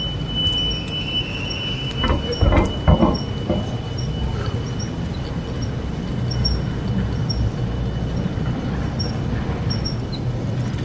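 Bicycle rolling along a concrete alley: a steady rumble of tyres and wind on the handlebar-mounted microphone, with a brief clatter of bumps about two to three seconds in and a faint steady high whine.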